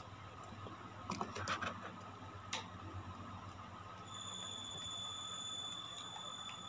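A few sharp clicks and taps from handling a small plastic lipstick tube, the loudest about a second in and once more near two and a half seconds. About four seconds in, a steady high-pitched tone starts and keeps going over a faint constant hum.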